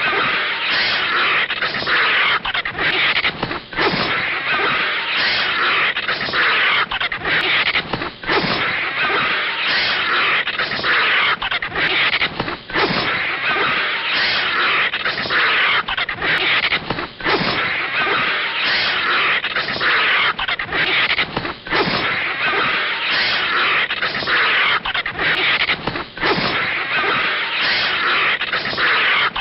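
Cartoon snake hissing sound effect: harsh, loud hisses that follow one another almost without pause, broken only by very short gaps.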